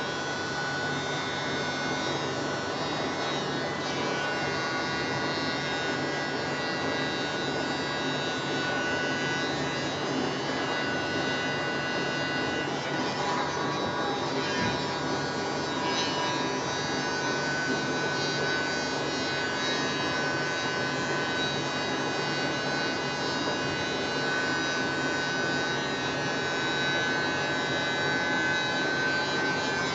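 Small electric blower running steadily with a constant motor whine, pushing wet pour-painting acrylic across a canvas.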